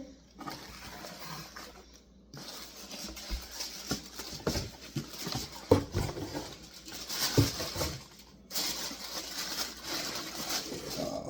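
Rustling and handling of packaging as a pair of leather loafers is unboxed, with scattered taps and knocks. It comes in several bursts separated by short pauses.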